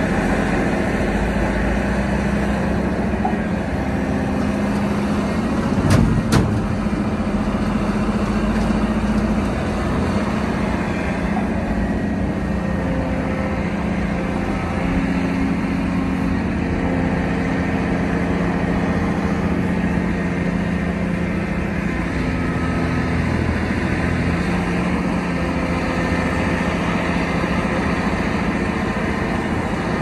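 Volvo EC700 crawler excavator's diesel engine running under working load, its steady note shifting slightly in pitch now and then. Two sharp knocks close together come about six seconds in.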